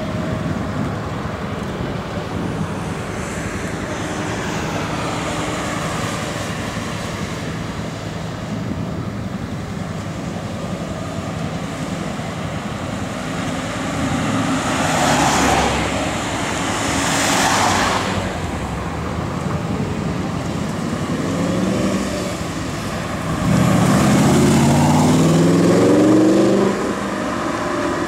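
Spyker C8 Aileron's Audi 4.2-litre V8 accelerating hard near the end, its pitch climbing for about three seconds before cutting off abruptly. Before that, steady road traffic noise, with two vehicles swishing past in the middle.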